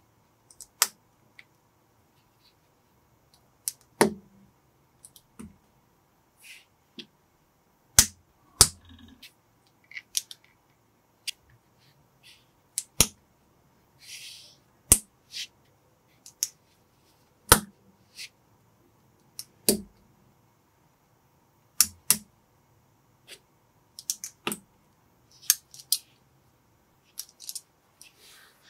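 Small plastic building bricks clicking and snapping together as pieces are pressed on by hand: about twenty sharp, separate clicks at irregular intervals, with short quiet gaps and a brief soft rustle of handling about halfway.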